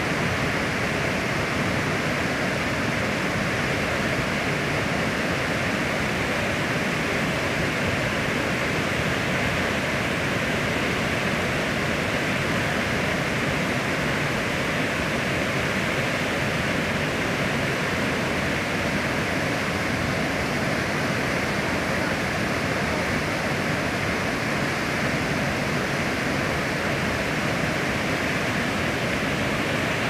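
Water pouring over a low fall into churning white water: a steady, unbroken rushing.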